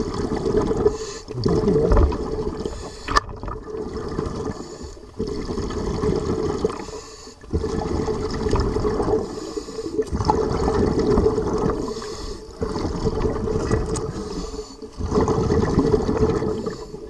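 Water sloshing and gurgling in uneven surges of a second or two with brief lulls, and a single sharp click about three seconds in.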